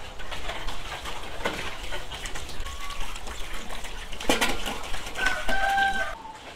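Chickens calling in a farmyard, with a held call about five seconds in, over scattered clicks and knocks.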